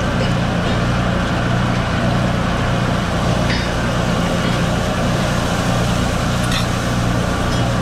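Steady roar and low hum of a commercial wok range: high-flame gas burners and the kitchen's ventilation running together, with a couple of faint metal clinks from a ladle on a wok.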